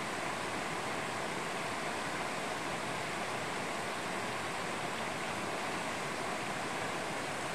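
Mountain stream flowing over stones: a steady, even rush of water.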